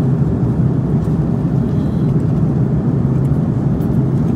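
Steady cabin noise inside an Airbus A330-300: a low, even rumble of engines and airflow.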